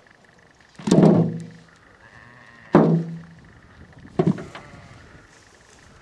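Handfuls of potatoes landing in a metal wheelbarrow: three hollow thunks, each with a short ring from the barrow's tray. The first comes about a second in and is the loudest, the second just under three seconds in, and the last a little past four seconds.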